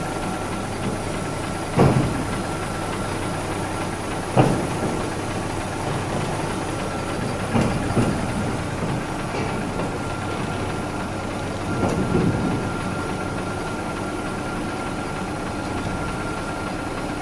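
Mini excavator's diesel engine running steadily with a thin steady whine as the machine is driven out of a steel shipping container. Four loud metallic clanks, about two, four and a half, eight and twelve seconds in, come from its tracks and blade bumping over the container floor and truck deck.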